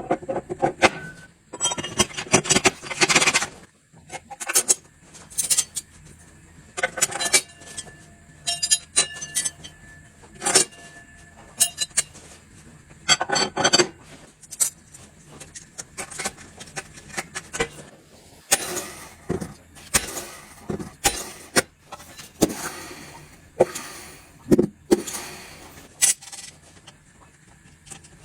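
Metal parts and hand tools clinking, knocking and scraping together during hands-on transmission work, a series of irregular sharp clinks, some leaving a brief metallic ring.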